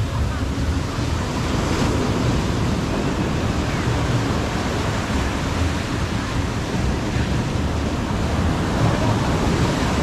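Ocean surf washing onto Waikiki Beach, a steady rushing, with wind buffeting the microphone.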